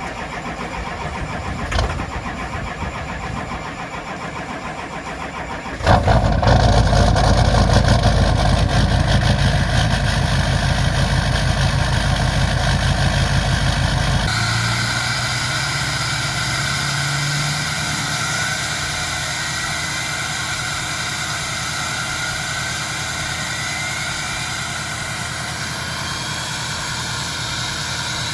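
A vehicle engine starts suddenly about six seconds in and runs loudly. About fourteen seconds in it gives way to a steadier running sound with a few rising whines.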